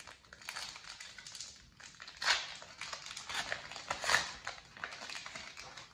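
Crinkling and tearing of a foil Pokémon trading-card pack wrapper as it is opened, with two louder crackles about two and four seconds in.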